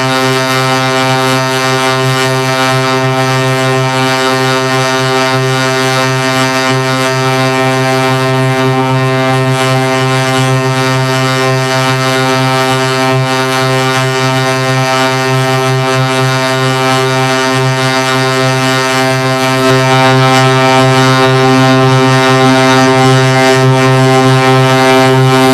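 A steady, low buzzing drone held at one pitch with many overtones, a little louder from about twenty seconds in.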